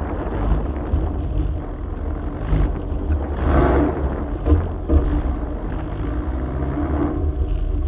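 An air-cooled Volkswagen engine runs as the car drives through deep snow: a steady low rumble, swelling louder about halfway through, with a couple of short peaks just after.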